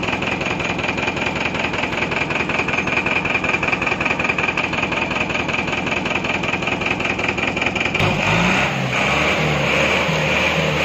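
Heavy truck's engine running hard with a rapid even pulse while the truck sits stuck in deep mud. About eight seconds in the sound changes abruptly to a lower engine note that shifts up and down in pitch.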